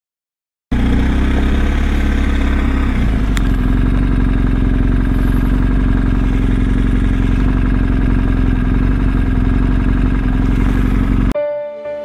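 BMW R1250 GS boxer-twin motorcycle engine running at steady road speed, its note shifting slightly about three seconds in. It cuts in suddenly after a moment of silence and cuts off near the end, where music begins.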